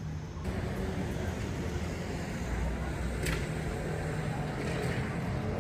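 City street ambience: a steady low rumble of road traffic, with one sharp click a little past three seconds in.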